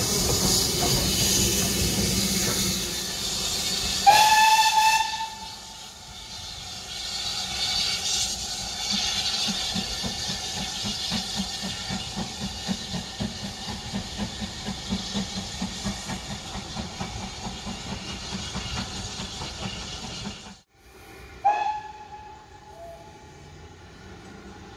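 Steam locomotive, BR Standard Class 4 tank 80097, passing close with a loud hiss of steam, then a whistle blast about four seconds in. A steam locomotive then works up the line with steady, regular exhaust beats. After a sudden break comes one short, more distant whistle.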